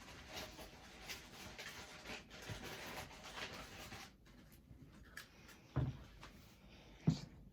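Faint rustling and handling noise for about four seconds, then quieter, with two soft thumps near the end.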